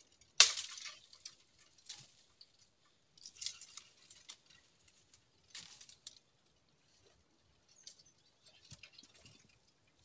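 Dry brushwood and twigs crackling and snapping as dead branches are pulled and broken by hand, in a string of sharp bursts: the loudest about half a second in, others around two, three and a half and five and a half seconds, and lighter crackles near the end.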